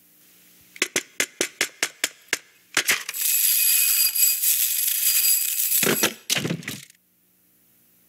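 Slinky Dog's metal coil spring in a film sound effect. A rapid run of metallic clicks, about six a second, is followed by a bright metallic rattle with a high ringing in it that lasts about three seconds. Two shorter, lower sounds come near the end.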